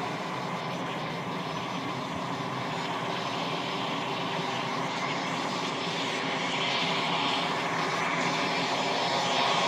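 Cessna Citation CJ1 business jet's twin turbofan engines running at taxi power: a steady whine over a rushing hiss, growing slowly louder as the jet comes nearer.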